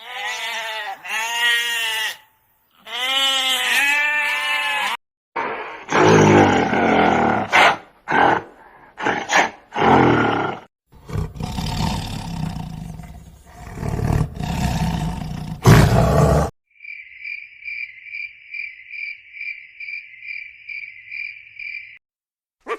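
A run of different animal calls one after another: two wavering pitched calls, then several seconds of loud, rough calls, then a high-pitched call pulsing about three times a second.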